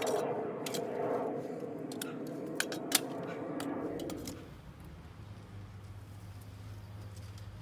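Clamshell post hole digger worked into the soil, its blades scraping and clinking on grit and stones. About four seconds in, the sound drops away to a quiet, steady low hum.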